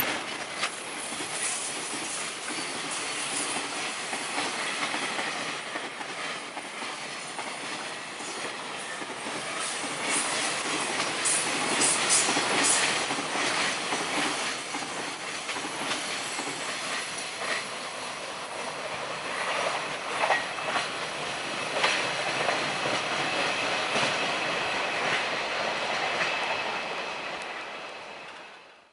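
Freight train wagons rolling past at speed, with a steady rush of wheels on rail and repeated clacks over the rail joints, fading away near the end.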